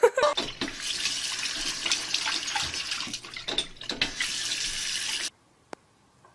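Water running from a bathroom sink faucet as a dog paws at its handle, a steady splashing hiss that cuts off abruptly about five seconds in.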